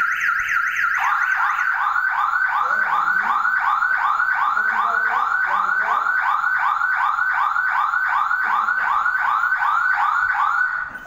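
Electronic siren of a home burglar alarm sounding, set off by opening a window fitted with the system's contact sensor. A fast warble changes about a second in to a slower repeating whoop, about three a second, then cuts off abruptly near the end.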